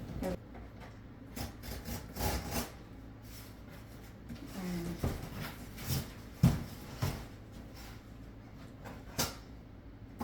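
Hands handling unboxed items and packaging on a surface: scattered taps, rubs and knocks, the loudest knock about six and a half seconds in.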